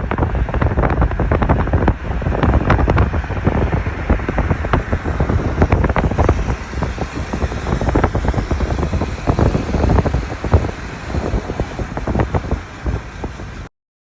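Wind buffeting the microphone: a loud, low rumble with irregular gusty thumps, cutting off abruptly near the end.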